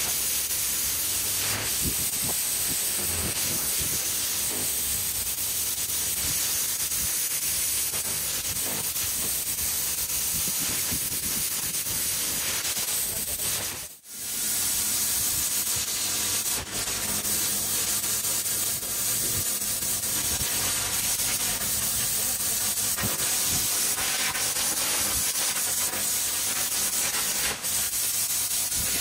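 Pressure-washer lance blasting a high-pressure jet of water onto concrete paving slabs: a steady hiss with a low hum beneath. It cuts out for a moment about halfway through, then carries on.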